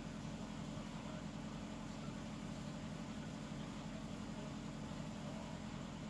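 Steady low hum with an even hiss over it, constant throughout, with no rise and fall of breathing or snoring.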